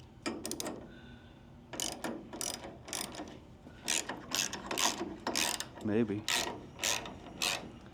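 Ratchet wrench clicking in a dozen or so short, irregular strokes as a bolt on the conveyor's chain tensioner is turned.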